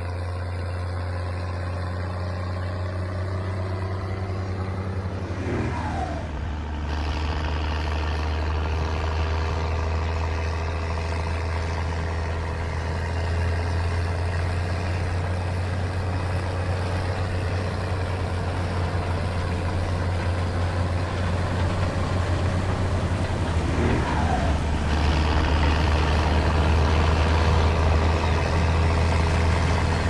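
Case IH 1455 XL's six-cylinder turbo diesel engine running steadily under load while pulling a reversible plough, growing gradually louder.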